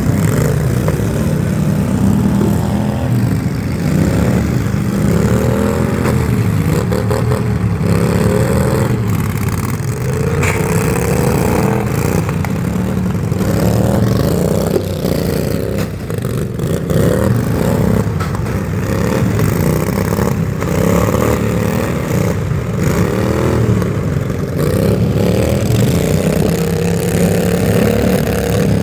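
A loud engine running continuously, its pitch rising and falling over and over as if revved.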